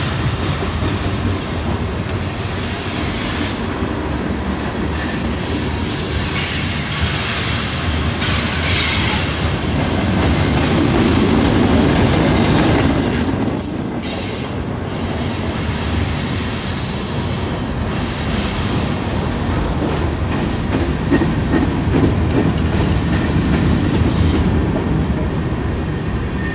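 Freight train cars rolling past on a curve: steady rumble and clatter of steel wheels on the rails, with wheel squeal at times. It swells a little louder for a few seconds near the middle.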